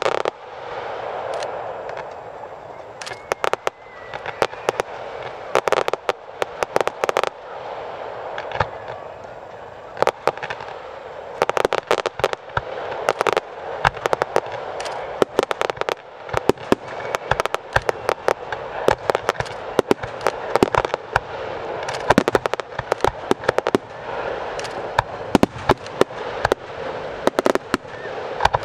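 A fireworks display: a string of sharp bangs and crackling shell bursts over a steady hiss of burning effects. The explosions come quicker and closer together after about ten seconds.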